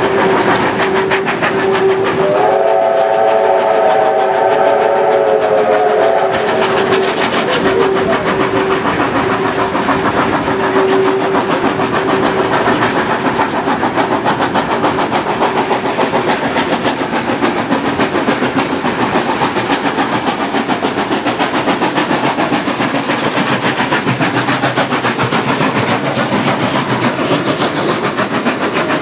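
Steam locomotive whistles: one steady whistle tone held for about the first eleven seconds, joined from about two to six seconds in by a chime whistle sounding a chord of several notes. Under them runs the continuous rumble and clickety-clack of a train running on rails, heard from a carriage window as another steam train comes alongside on the next track.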